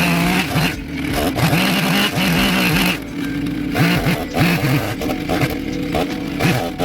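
Chainsaw engine revving up and down over and over, with short dips between revs, as it cuts into wood.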